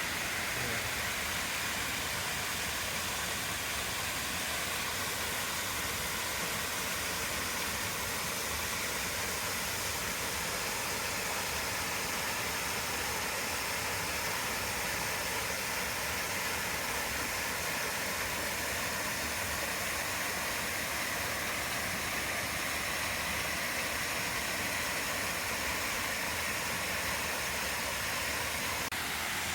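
Waterfall pouring steadily: an even, unbroken rushing of water.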